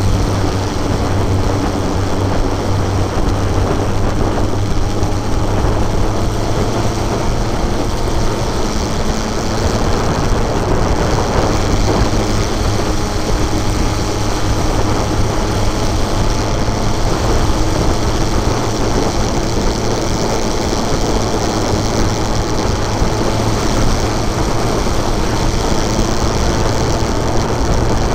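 Motorcycle engine running steadily at cruising speed, mixed with wind rush over the bike-mounted microphone.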